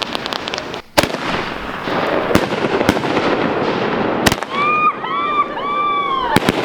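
Aerial fireworks bursting close overhead: about five sharp bangs over a continuous crackle.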